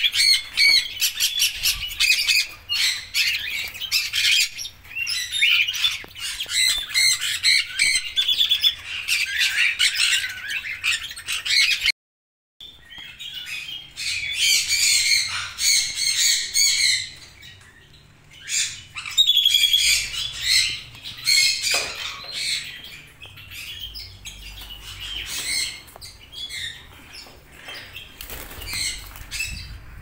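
Red-rumped parrots chirping and squawking, a busy run of short, high, rapidly repeated calls; the sound drops out for a moment about twelve seconds in, then the calls resume, more scattered toward the end.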